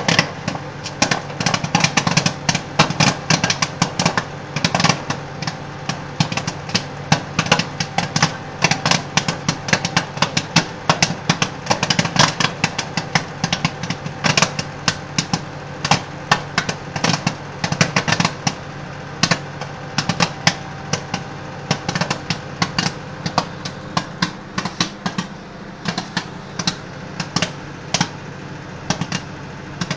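Microwave popcorn popping rapidly inside a running microwave oven: a dense run of sharp pops, many a second, over the oven's steady hum.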